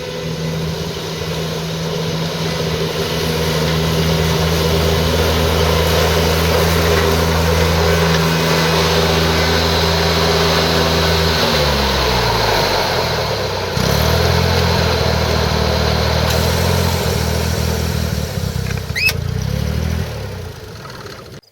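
Exmark Lazer Z zero-turn mower's 31 hp liquid-cooled Daihatsu engine running while the mower cuts thick, tall grass. The engine note is steady, drops in pitch for a couple of seconds about halfway through, then levels off again, and fades and cuts off near the end.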